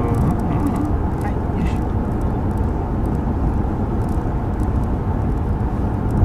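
Steady low rumble of a moving BMW 750i heard inside its cabin: road and drivetrain noise with no rise or fall in pitch.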